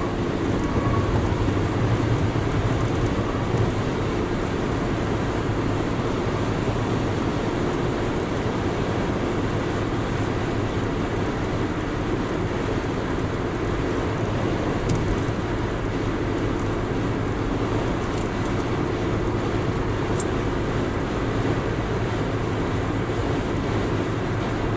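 Steady road noise inside a car cruising at highway speed: even tyre noise with a low engine hum underneath.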